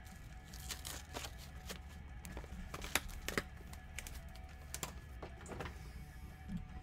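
Irregular sharp clicks and taps, a dozen or so, over faint background music and a low steady hum.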